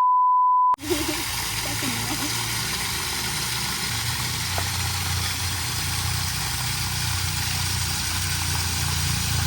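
A single steady high beep lasting under a second, then a steady low engine hum with a constant hiss, like a vehicle's engine running.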